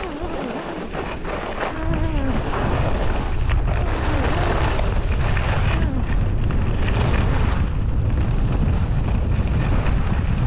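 Wind buffeting the action camera's microphone while skiing downhill, a heavy low rumble that gets louder about two seconds in, with skis scraping over packed snow underneath.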